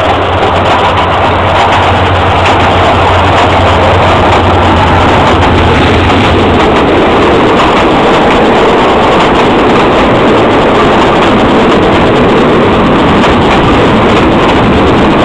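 Passenger train on Thailand's Death Railway passing close alongside the platform. A deep hum from the diesel locomotive's engine dies away about six seconds in, and the steady rolling noise of the carriages going by continues.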